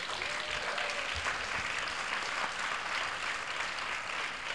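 Audience applauding: many people clapping at once, a dense, steady clapping.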